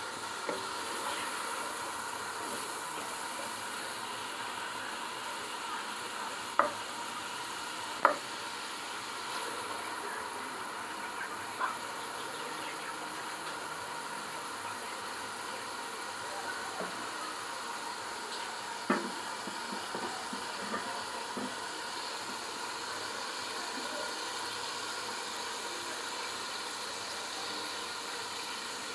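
Chopped onion and tomato sizzling steadily in olive oil in an aluminium pot, being sautéed before the rice goes in. Four sharp knocks of a stirring spoon against the pot cut through the sizzle.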